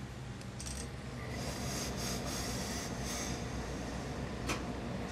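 Hose-fed industrial steam iron pressed onto a suit jacket's hem to fuse the adhesive interfacing: stretches of hissing and fabric rustle over a steady low hum, with a short click about four and a half seconds in.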